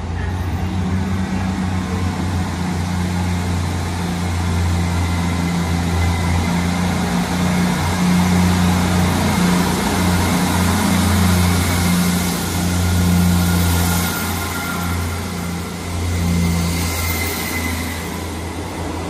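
Two coupled Class 159 diesel multiple units accelerating away, their Cummins diesel engines running under load with a steady deep drone. The engine note eases off near the end as the train moves away.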